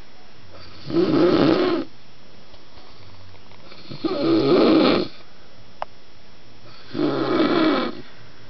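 A man snoring in his sleep: three loud snores, each about a second long, coming about every three seconds.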